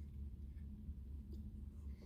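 Quiet low steady hum with a faint click a little past a second in.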